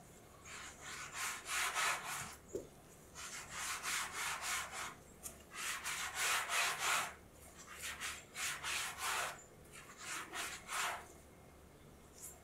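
Gloved hands rolling a strip of enriched bread dough back and forth on a floured silicone baking mat: a run of soft rubbing swishes, uneven in length, that stops about a second before the end. This is the shaping of the dough into a long strip for butter rolls.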